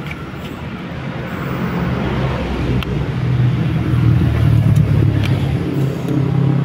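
CC 203 diesel-electric locomotive (General Electric build) running during a shunting move, its low engine hum growing steadily louder as it approaches.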